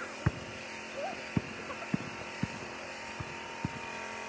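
A basketball bouncing on pavement, about six bounces at uneven spacing, over a steady low machine hum.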